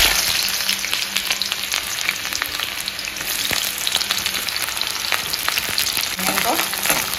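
Sliced onions frying in hot oil in an iron kadhai: a burst of sizzling as they hit the oil right at the start, settling into a steady crackling sizzle.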